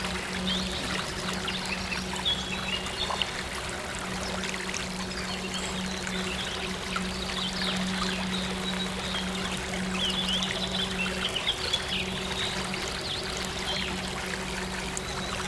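Trickling stream water with scattered small bird chirps, over a low, steady synth drone.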